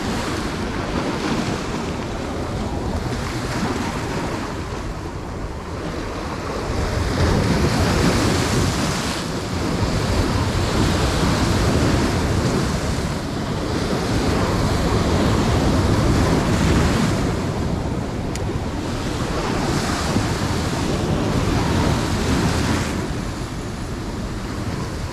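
Sea waves breaking and washing over shoreline rocks, the surf swelling and easing every few seconds, with wind rumbling on the microphone.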